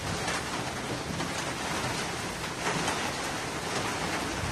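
Steady rain of a rainstorm falling, with gusting wind.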